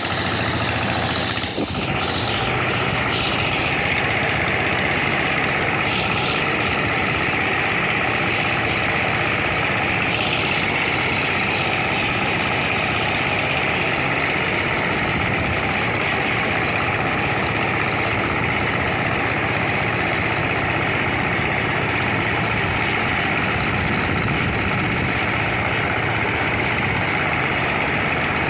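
Kuliglig hand tractor's single-cylinder diesel engine running steadily as the machine drives along.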